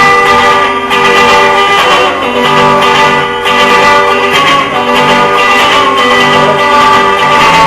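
Guitar played solo, an instrumental passage of held, ringing notes and chords.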